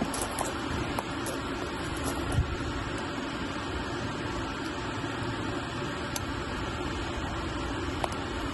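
Steady background hum and hiss with a few faint clicks.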